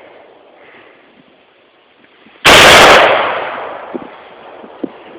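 A single AR-15 rifle shot about halfway through, loud enough to overload the phone's microphone, with a short echoing tail.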